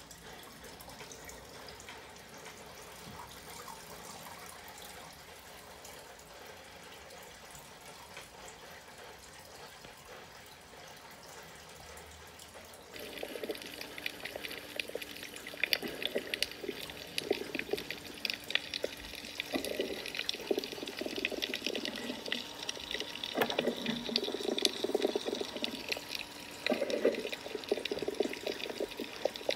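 Underwater water ambience. A faint steady hiss changes about halfway through to louder, uneven sloshing water noise, with irregular surges and frequent sharp clicks.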